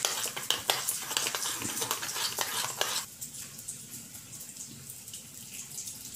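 A spoon stirring curd and sugar in a steel bowl: quick wet scraping and clicking, which stops about three seconds in, leaving only faint low noise.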